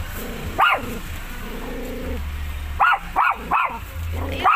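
Dog barking five times in short, sharp barks: once near the start, then four in quick succession over the last two seconds.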